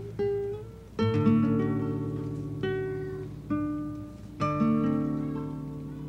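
Instrumental background music on a plucked string instrument: notes and chords struck roughly once a second, each ringing out and fading.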